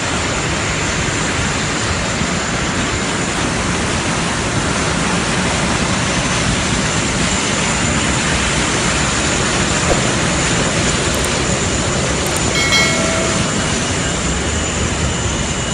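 Steady, loud roar of airliner jet engines running on a wet apron, with a faint high whine throughout. A click and a short chime come about thirteen seconds in.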